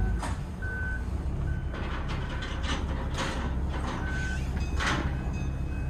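Low, steady engine rumble with a high electronic beep sounding several times at uneven intervals, some beeps short and some held for about half a second. A few brief swishing noises come in between.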